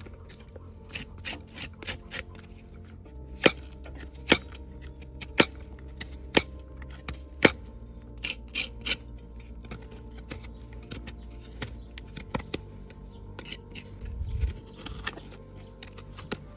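Hoof knife paring the sole of a horse's hoof: a series of crisp scraping clicks as slivers of sole are cut away, the loudest five about a second apart in the first half, then lighter strokes.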